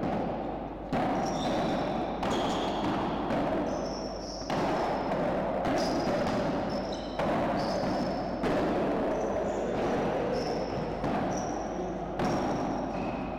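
Padel rally: the ball is struck by paddles and bounces off the court and walls, a hit about every second, each followed by echo in the hall.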